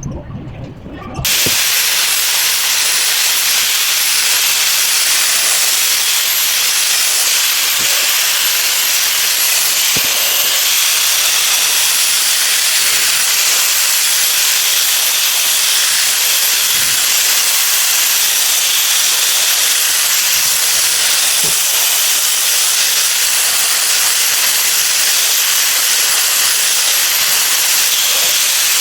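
A steady, loud hiss that starts suddenly about a second in, with a faint wavering high whistle riding on it.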